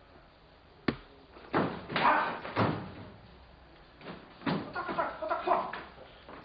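Thuds and slaps of karate movement: a sharp crack about a second in, then two quick clusters of thumps and slaps.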